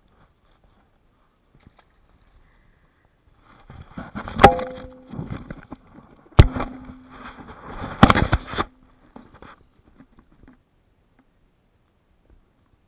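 Handling noise on a body-worn action camera: three sharp knocks about two seconds apart, with fabric rustling between them, as the camera is jostled against a sweatshirt.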